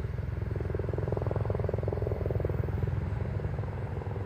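A lawn mower's small petrol engine running steadily at a distance while cutting grass, its drone swelling a little in the middle.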